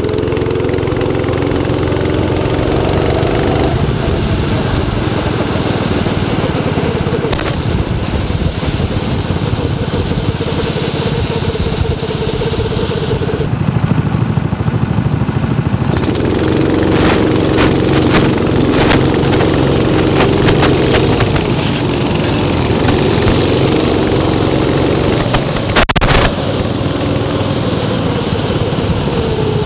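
Small go-kart engines running as karts drive round the track, their pitch rising and falling as they accelerate and pass, over a constant low rumble. Near the end there is a brief sharp knock.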